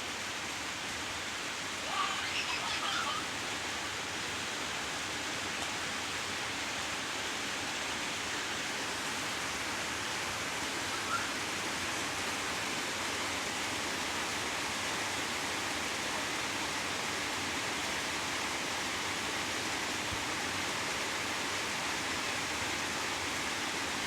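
Steady rain falling hard, a constant even hiss. A brief faint voice comes through about two seconds in.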